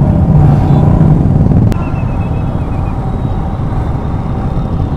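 Royal Enfield motorcycle engines running on the move. The sound is louder for the first second and a half, then drops after a click.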